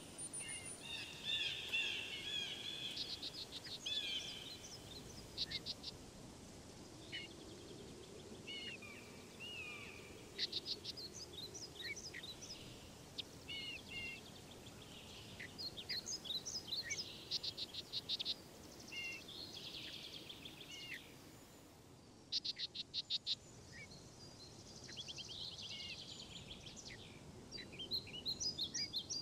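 Several birds singing and calling: short chirps, whistled slides and quick trills, overlapping and coming and going with brief lulls.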